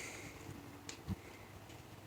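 Quiet background with a faint low hum, a small click just under a second in and a soft low thump just after.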